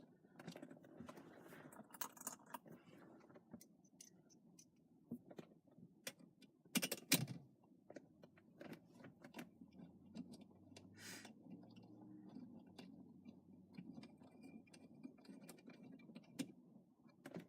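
Faint small metallic clicks and taps of an Allen key working the small bolts that hold a steering wheel to its hub adapter, with one louder knock about seven seconds in.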